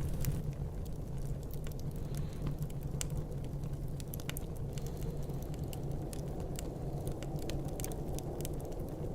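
Fireplace crackling, with scattered sharp pops, over a steady low rumble of snowstorm wind.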